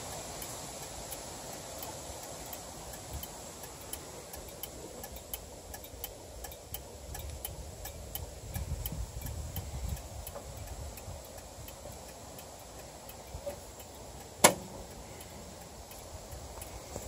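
Ride-on scale model locomotive rolling along the track: light, regular clicking of its wheels on the rails, about two clicks a second, over a low rumble that swells around the middle. One sharp, loud knock sounds near the end.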